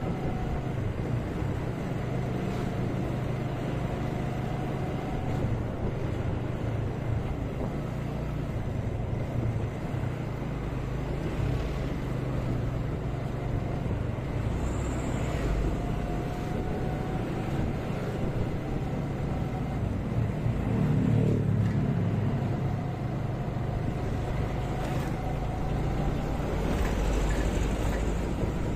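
Motorcycle running steadily along a road in traffic, engine and road noise continuous, with a loaded truck's engine close ahead. The sound swells briefly about two-thirds of the way in and again near the end.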